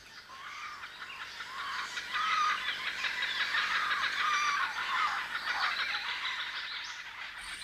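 A chorus of many birds calling and chattering together, growing louder about two seconds in and fading away near the end.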